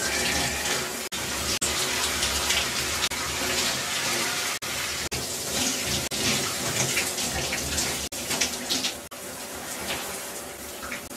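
A steady rushing hiss of running or splashing water, broken by a few very brief dropouts.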